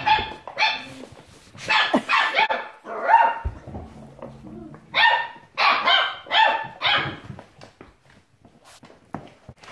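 Border collie puppies yapping in play: bursts of short, high-pitched barks in quick runs, with a low growl about three and a half seconds in.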